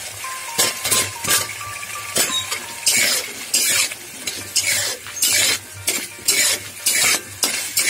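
Flat metal spatula scraping and stirring raw banana pieces through spice paste in a kadai, in irregular strokes over a light sizzle.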